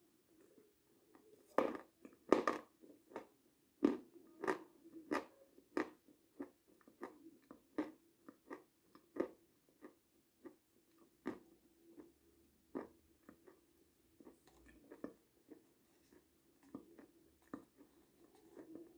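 Close-up mouth sounds of eating strawberry fruit yogurt: irregular wet smacks and clicks of lips and tongue, about one or two a second, louder in the first half.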